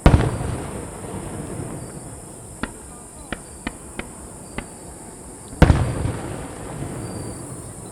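Aerial firework shells bursting: a loud deep boom with a long rolling echo right at the start, a few sharp cracks over the next few seconds, then a second big boom with its echo about five and a half seconds in.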